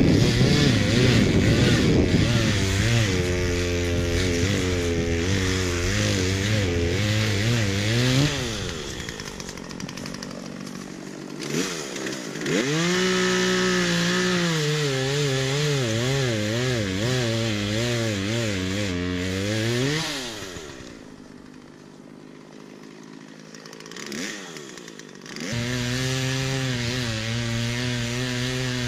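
Chainsaw cutting dead trees, running hard in three spells with its pitch wavering as it works. It drops away about eight seconds in and again around twenty seconds, then comes back up near the end.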